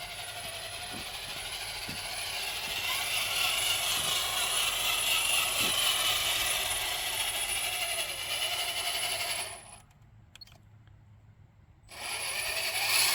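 Electric RC truck drivetrain running: dual motors and a geared transmission whirring and whining as the speed rises and falls. It cuts out for about two seconds near the end, then starts again. The gear noise comes from the pinion gears on the dual motor mount, and the transmission is running noisy for want of more grease.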